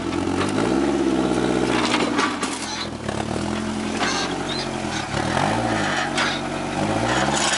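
Suzuki Vitara's engine revving up and easing off several times in low gear as the 4x4 crawls its wheels over a boulder.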